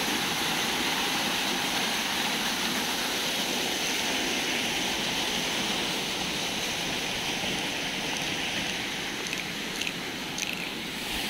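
Fast-flowing Himalayan mountain water rushing in a steady, even roar. A few faint clicks come near the end.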